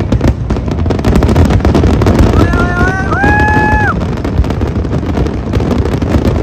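Fireworks display bursting in a dense barrage: continuous booms and crackle. About three seconds in, a short high tone rises, holds and drops away over it.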